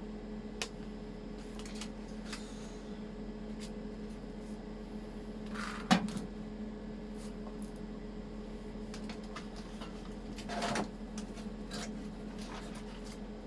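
Steady electrical hum of a switched-on 130-amp hobby MIG welder, with scattered light clicks and knocks of handling; a sharp knock about six seconds in and a short scraping noise near eleven seconds.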